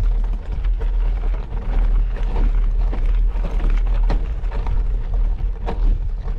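Wind buffeting the microphone in a steady low rumble while a bicycle rides a gravel track, its tyres crunching and the bike rattling in irregular clicks and knocks.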